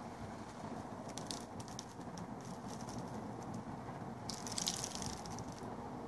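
Steady rain falling, with scattered drops ticking close by and a brief louder hiss about four and a half seconds in.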